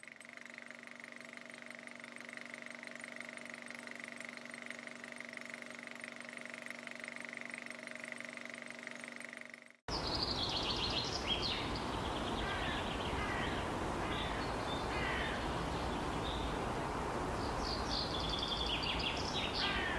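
A steady hum of several held tones, slowly swelling, cut off suddenly about ten seconds in. Outdoor ambience replaces it: a steady rush of noise with birds chirping in short, quick phrases, busiest near the end.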